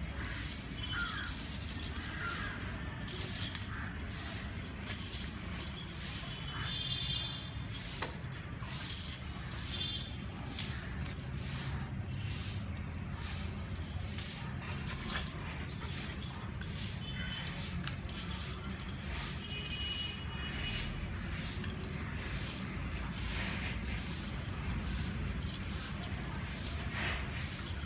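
Small metal bell on a dog's collar jingling irregularly as the dog moves, in short clusters of tinkling clicks.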